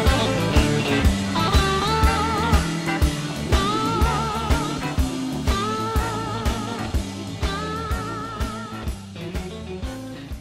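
Background rock music with a steady beat of about two hits a second and a wavering melody line, fading out toward the end.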